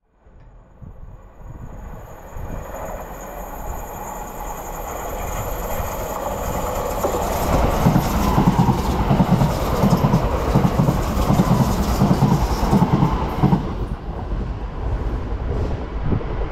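A train passing at speed on the main line. A high ringing builds as it approaches, then a rhythmic beat of wheels over the rail joints is loudest as it goes by. The sound drops away quickly near the end.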